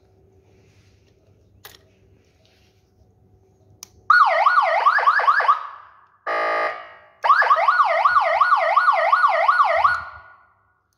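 Electronic police siren on a Honda CB125F police motorcycle, switched on from its handlebar control box. It sounds a rapid yelp, with the pitch sweeping up and down about four times a second. Partway through it breaks for a brief buzzing horn blast, then the yelp resumes and cuts off near the end.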